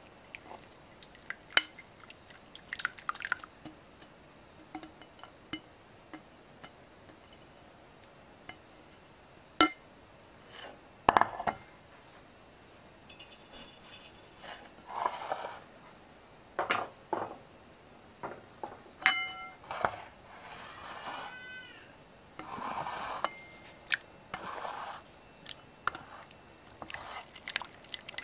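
Silicone whisk stirring thin pumpkin pie filling in a bowl: irregular wet swishing strokes with scattered sharp clinks against the bowl.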